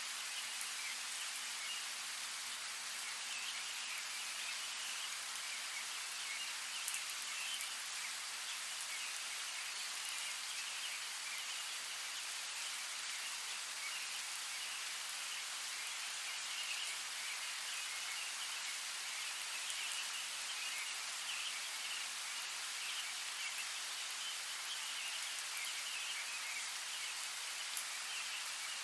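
Steady rain falling, an even hiss with a few sharper drop ticks, one about seven seconds in and another near the end.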